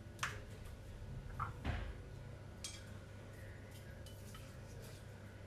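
Tableware being handled on a kitchen counter: about four light clinks and knocks of a small bowl and chopsticks in the first three seconds, over a low steady hum.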